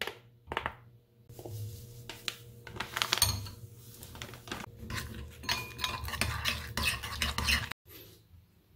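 Metal spoon clinking and scraping against a small bowl while stirring a thick chili seasoning. Two taps come first, then quick, continuous stirring that cuts off abruptly near the end.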